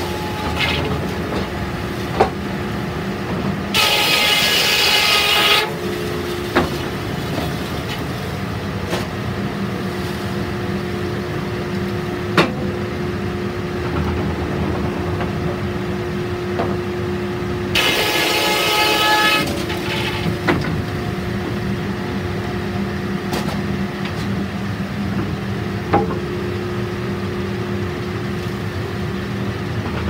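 Three-phase electric block mill running steadily, its large circular saw blade cutting through a wood block twice, each cut a loud high-pitched whine lasting under two seconds. A few sharp knocks from the blocks and the cable-and-belt carriage.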